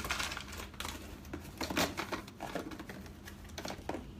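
Small cosmetic items and their packaging clicking, clacking and rustling in quick, irregular succession as they are handled and packed back into a box.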